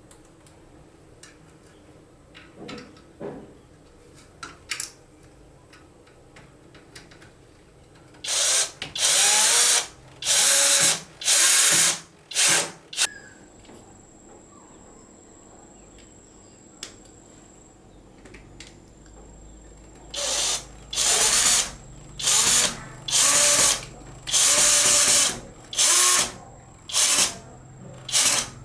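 Power drill run in repeated short bursts, each starting with the motor spinning up. A group of about five bursts comes about a third of the way in, and a longer group of eight or so follows after a pause of several seconds.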